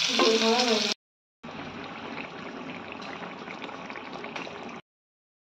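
Hot oil sizzling around egg patties frying in a wok for about the first second; after a brief gap, a curry gravy bubbling and popping as it simmers, which stops abruptly near the end.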